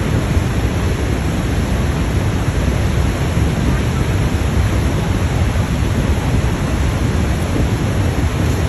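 Steady, loud rush of a waterfall: an unbroken wash of falling water, heaviest in the low end.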